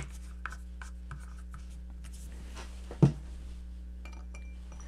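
Small clicks and taps as fingers handle circuit boards in a small glass bowl of solvent, with one louder knock about three seconds in. Near the end come light ringing clinks of a board against the glass, over a steady low hum.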